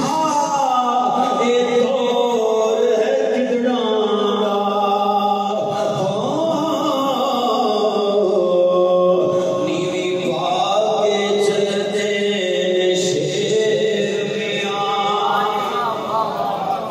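A man chanting devotional verse without accompaniment, holding long notes that waver and slide in pitch across several drawn-out phrases.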